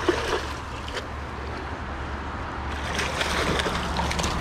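A hooked pink salmon splashing at the surface of the river close to the bank, with a sharp splash just after the start and heavier splashing from about three seconds in, over the steady rush of the river.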